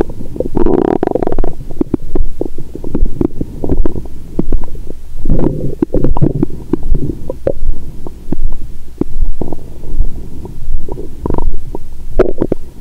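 A person's stomach gurgling and rumbling, heard close up through a stethoscope on the belly: digestion sounds after a meal. The gurgles come irregularly, with a strong one about half a second in, another run of them around the middle, and more near the end.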